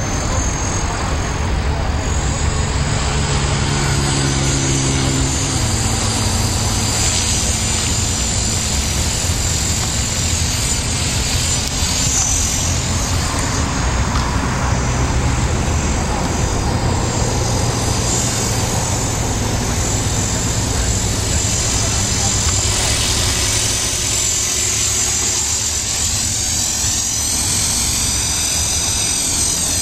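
Radio-controlled CopterX 450 helicopter in flight: the steady whine of its electric motor and spinning rotor, its pitch shifting now and then as it manoeuvres.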